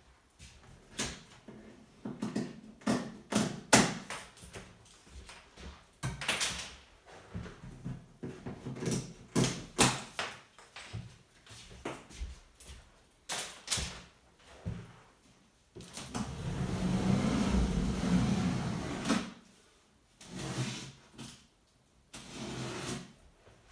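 A large cardboard shipping box being unpacked by hand, with its plastic packing straps pulled off: a string of sharp snaps, knocks and rattles. About two-thirds of the way in comes a louder scraping rustle lasting about three seconds, then a few more knocks on the cardboard near the end.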